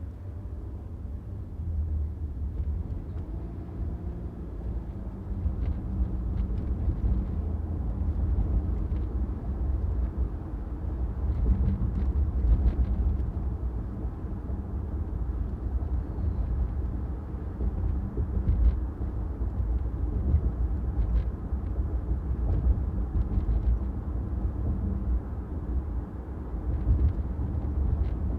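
A car driving on city streets: a steady low rumble of engine and road noise, with faint light clicks now and then.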